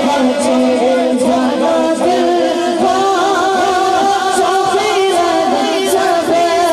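A boy singing a naat, an Urdu devotional song, into a microphone in long, held, wavering notes.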